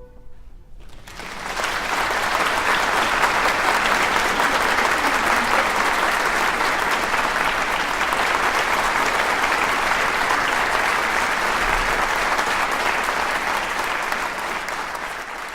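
Audience applauding in a concert hall, breaking out about a second in as the orchestral piece ends, then holding steady and tapering off near the end.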